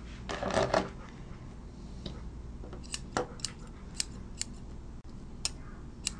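Steel grooming shears snipping through an Airedale terrier's wiry leg coat: a string of sharp, irregular snips, most of them in the second half. A short rustling burst about half a second in is the loudest moment.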